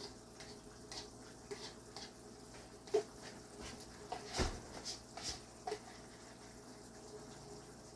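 Scattered light clicks and knocks of kitchen utensils and dishes, the loudest about three seconds in and another about four and a half seconds in.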